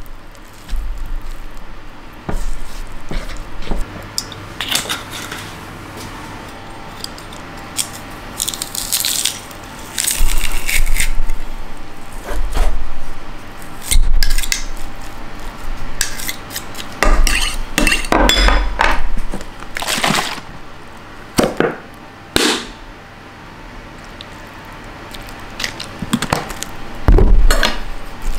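Kitchen clatter during meal prep: dishes, pots and utensils knocking and clinking irregularly.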